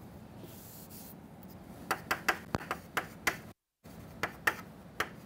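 Chalk writing on a blackboard: a faint scratchy stroke about half a second in, then from about two seconds in a run of sharp taps and clicks as the chalk strikes the board. The sound drops out completely for a moment just past halfway.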